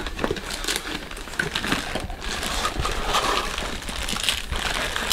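Thin clear plastic packaging bags crinkling and rustling as hands pull figure parts out of them, in quick irregular crackles.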